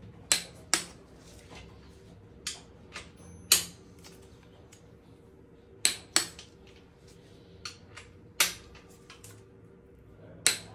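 Click-type torque wrench clicking off as each crankshaft main bearing cap bolt reaches its 60 N·m first-stage torque. There are about eight sharp single clicks at uneven intervals, some in close pairs.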